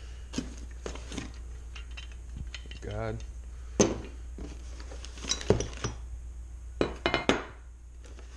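Winch kit parts and bagged hardware being handled in a cardboard box: a string of sharp clinks and knocks, the loudest about four seconds in, with quick clusters around five and a half and seven seconds.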